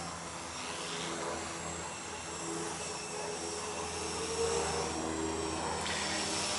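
Quadcopter's electric motors and propellers whirring in flight, the pitch shifting up and down as the throttle changes.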